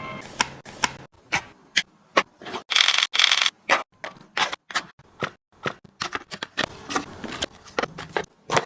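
Groceries and containers being handled and set down: a quick, irregular run of sharp clacks and knocks, with a short rustle about three seconds in.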